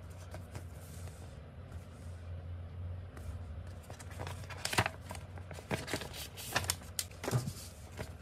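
Scattered sharp clicks and knocks, as of small objects being handled and set down, starting about halfway through, over a steady low hum.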